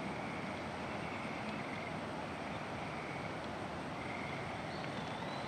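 Steady rushing noise of muddy floodwater flowing through a flooded park, with a faint high buzz repeating about once a second.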